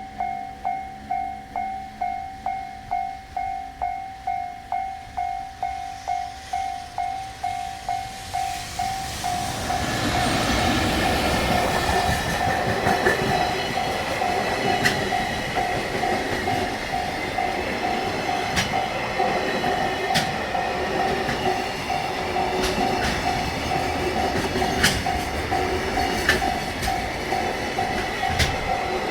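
Japanese level-crossing warning bell ringing steadily, about two strikes a second. About ten seconds in, a freight train hauled by a JR Freight EF210 electric locomotive comes through and runs on over the bell: the rumble and rattle of its container flatcars, with sharp wheel clicks over the rail joints.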